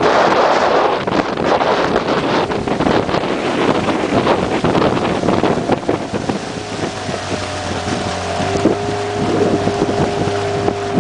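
Small boat's motor running under way, with wind buffeting the microphone and water rushing past the hull. A steady engine hum stands out more clearly from about halfway through.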